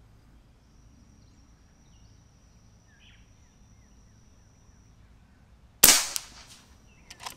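Single shot from a Hatsan Factor RC .22 PCP air rifle: one sharp report about six seconds in that rings out briefly. A few quick clicks follow near the end.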